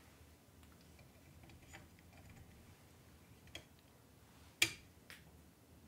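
A few light clicks and taps of hard plastic and metal parts as an AnkerMake M5 3D printer's hot-end heat sink is fitted onto the print head by hand. There are about four clicks, the sharpest about three-quarters of the way through.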